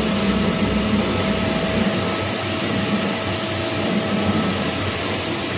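Metal lathe running steadily with a crankshaft turning in it: a constant motor hum under a thin steady whine and an even rushing noise.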